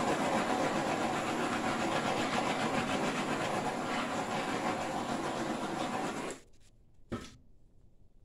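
Handheld butane torch lit with a sharp click, then a steady loud hiss of flame for about six seconds as it is passed over wet acrylic paint to pop surface bubbles. It cuts off suddenly, and a single click follows about a second later.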